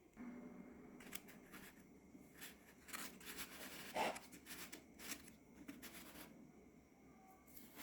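Faint handling sounds: soft rustling and scattered light taps and clicks, with one sharper knock about four seconds in.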